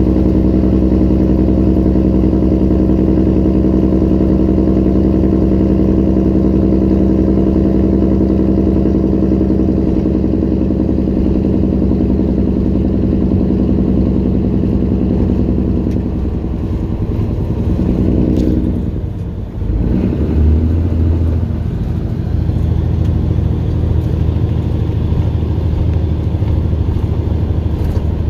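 2011 Peterbilt semi truck's diesel engine heard from inside the cab, running steadily under load while driving. About two-thirds of the way through, its note falls and briefly dips, then carries on at a lower pitch, as in a gear change.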